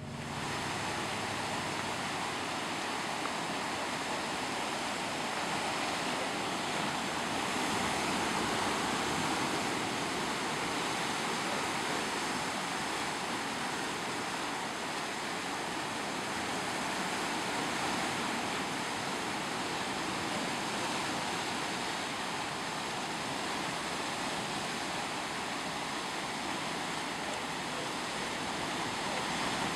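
Seawater surging and foaming among rocks, a steady rushing surf.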